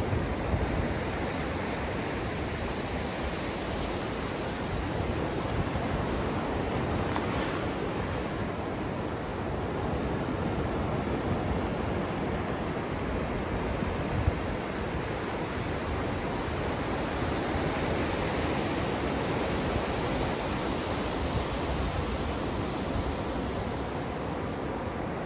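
Low ocean surf breaking and foamy swash washing up the sand right around the microphone: a steady rush that swells gently twice as waves come in. One brief tap about halfway through.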